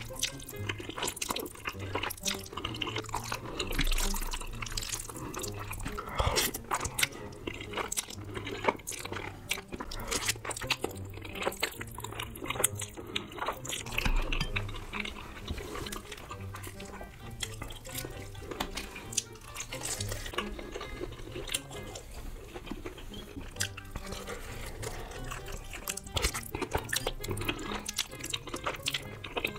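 Close-miked wet chewing and slurping of saucy black bean noodles: dense mouth clicks and smacks, with soft background music underneath.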